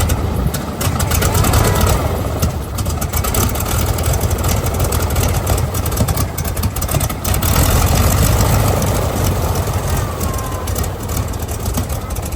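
Radial engine of a WWII-era trainer aircraft running just after start-up, loud and uneven, swelling in power twice.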